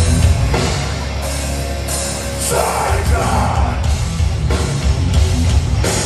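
Live band playing loud, with distorted electric guitars, bass and a drum kit with cymbal hits, heard from within the crowd. A shouted vocal comes in about halfway through.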